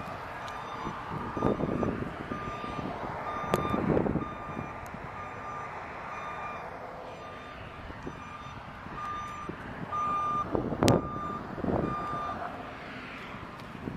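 A vehicle's reversing alarm beeping at an even pace, about one beep every three-quarters of a second, stopping about twelve seconds in. A few low swells of noise come and go under it, and a single sharp click sounds near the end.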